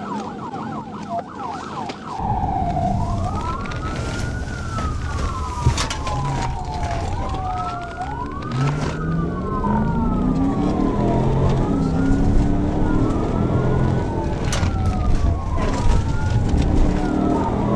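Police sirens: a fast yelp for about two seconds, then a slow rising-and-falling wail from two sirens sounding out of step. Under them runs the police cruiser's engine and road noise, the engine note climbing in steps as the car accelerates.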